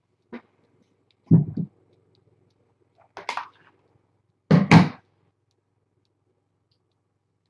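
A few short dull knocks and thumps with silence between them: a faint click at the start, a double thump about a second and a half in, another knock near three seconds, and the loudest, a double thump, about a second after that.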